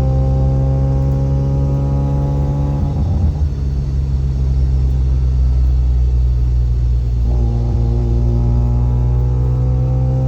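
Mazda FC RX-7's 13B rotary engine and exhaust drone heard from inside the car, with a differential gear whine over it that slowly rises in pitch, drops out about three seconds in and comes back about seven seconds in. The whine comes and goes with the load on the differential, which sits on solid delrin bushings that pass the gear noise into the body.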